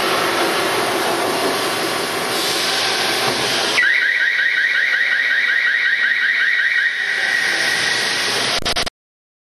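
CNC plate drilling machine's drill cutting into steel plate, fed at 3.5 mm per second: a steady grinding cutting noise, then about four seconds in a high squeal with a warble that repeats several times a second. The sound cuts off suddenly near the end.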